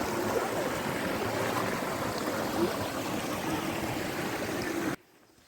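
Steady rush of a rocky stream's flowing water, which stops abruptly near the end.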